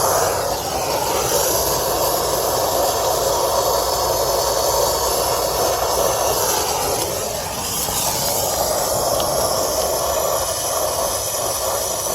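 Brazing torch flame burning with a steady hiss on copper refrigerant line joints, easing slightly for a moment about halfway through.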